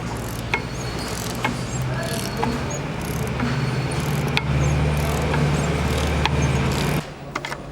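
Factory machinery noise: a steady low hum that grows louder about halfway through, with scattered sharp metallic clicks and clanks, then cuts off suddenly near the end.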